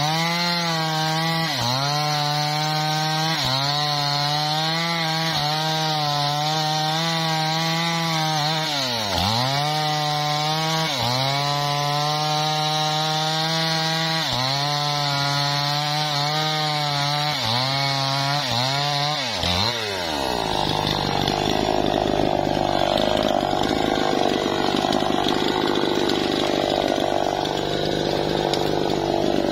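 Two-stroke chainsaw at full throttle cutting into the base of a teak trunk. The engine note sags and recovers again and again as the chain loads up in the wood. About twenty seconds in, the high engine note drops away and a rougher, noisier running continues.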